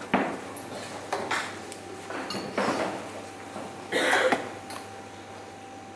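A few short, sharp knocks and clinks: a steel-tipped dart striking a Winmau bristle dartboard, with glasses and cutlery clinking in the room.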